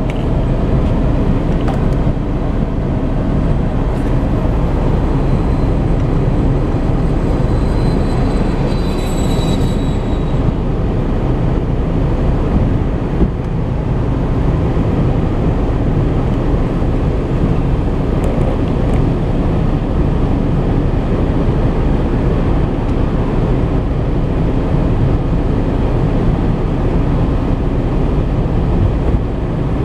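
Car heater blower fan running on max in the cabin, a steady rush of air over the idling engine; the heater is set to hot to draw heat off an overheating engine.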